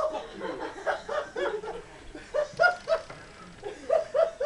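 Laughter in short, repeated pitched bursts.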